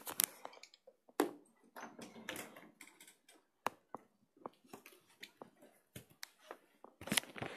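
Handling noise from the recording phone, its lens covered: scattered irregular clicks, taps and rustles, with a sharp knock about a second in and a cluster of clicks near the end.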